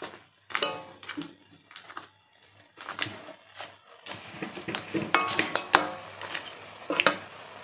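Spatula scraping and knocking against a wok while stirring whole crabs in their shells, in irregular strokes with brief metallic rings.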